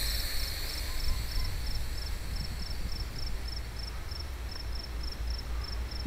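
Gusty wind buffeting the microphone in a steady low rumble, with a faint high chirp repeating about three times a second.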